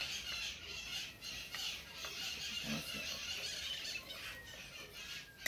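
Chopped onion sizzling in olive oil in a pot, stirred with a wooden spoon; a steady frying hiss with a few soft spoon knocks about halfway through.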